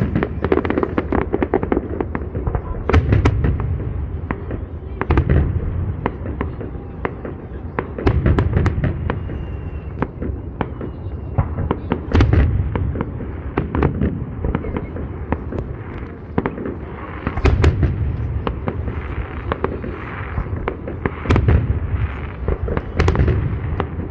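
Fireworks salute in full swing: deep booms of shells bursting every two to three seconds, with sharp cracks and crackling in between.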